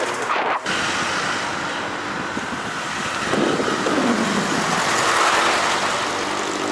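Vehicle engine and road noise: an engine tone falls in pitch about three to five seconds in, then a steady engine hum near the end.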